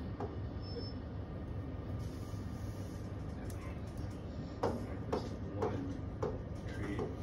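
Steady low room hum, with a run of short knocks about twice a second in the second half.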